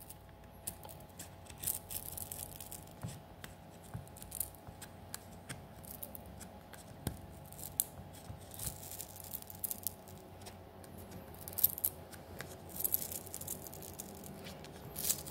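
Small sharp clicks and light scraping of tools working inside an opened LG G7 ThinQ phone as its glued-in battery is pried out, at irregular intervals and busier near the end.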